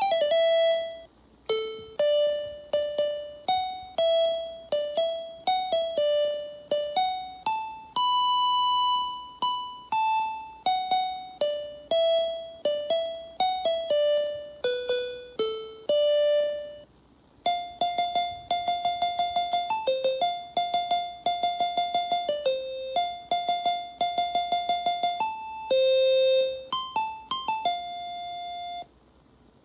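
SN76489 programmable sound generator chip playing an RTTTL ringtone as a one-voice melody of electronic square-wave notes, each note fading after it starts. The tune stops about 17 s in, and after a short pause a second ringtone plays, with many quick repeated notes on the same pitch.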